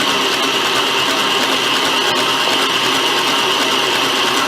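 Electric stand mixer running steadily, beating an egg into cream cheese and sugar batter in its bowl.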